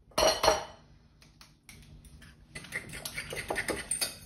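A fork beating egg into mashed banana in a glass mixing bowl, with quick, irregular clinks of metal on glass starting about halfway through. There are a couple of sharp knocks at the very start.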